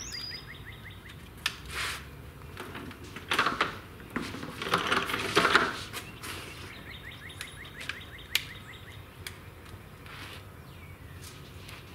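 A wooden cabinet on casters is pushed across a concrete garage floor, with irregular bumps and scraping that are loudest about five seconds in. A bird chirps in the background in quick series of short rising notes, near the start and again past the middle.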